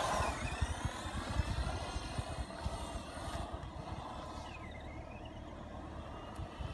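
Small brushed electric motor of an ECX AMP DB RC car whining as it is driven, its pitch dipping and rising again twice as the car slows and speeds up, over a low rumble.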